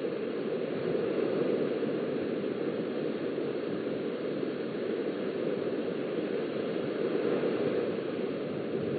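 Steady rushing of small waves washing onto a sandy beach, swelling and easing slightly, heard through a webcam microphone.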